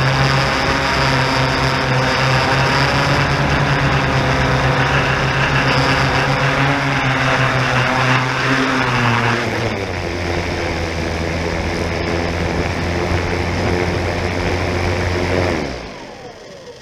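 Yuneec Typhoon G drone's motors and propellers humming steadily, with a drop in pitch about nine and a half seconds in as it settles onto the grass. Near the end the motors wind down with a falling pitch and stop.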